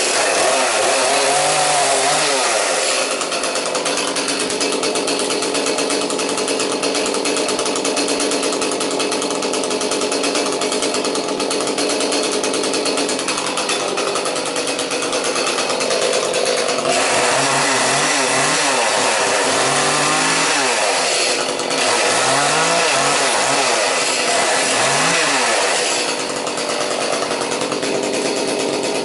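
Petrol two-stroke chainsaw running, held at high revs for a long stretch while cutting branches. In the second half it drops back and is revved up and eased off in several short rises and falls.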